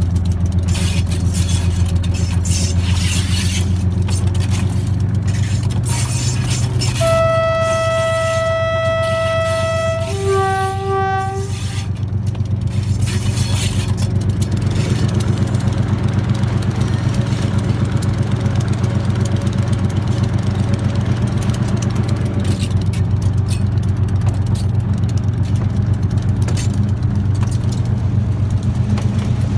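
RGE-20 diesel-electric locomotive running steadily under way. About seven seconds in its horn sounds one long blast of about three seconds, followed at once by a shorter, lower note.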